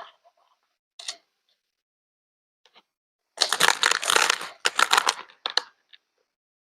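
Two small clicks, then about three seconds in a dense crackling, crinkling burst lasting under two seconds, followed by a few light ticks.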